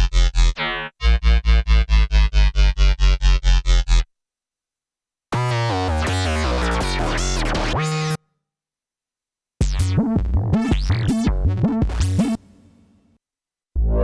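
Korg Minilogue XD polyphonic synthesizer playing one factory preset after another. First comes a pulsing bass-heavy pattern at about four notes a second, then a sustained patch with falling pitch lines, then a patch with sweeping pitch glides that fades out. Each is separated by a second or so of silence, and a new pulsing patch starts near the end.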